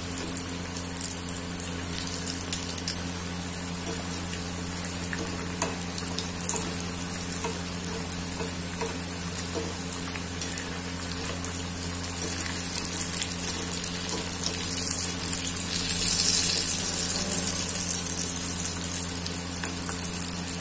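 Patti samosas deep-frying in hot oil: a steady sizzle with scattered crackling pops, growing louder in the last few seconds.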